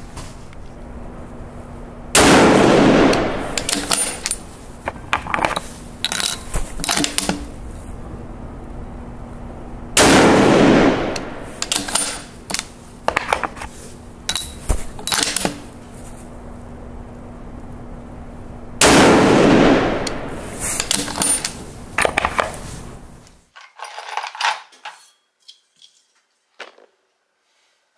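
Three rifle shots from a target rifle fired off a rear sandbag, about eight seconds apart, each a loud crack with a long echoing tail, with quieter sharp cracks and clicks between them. The sound cuts off suddenly about 23 seconds in.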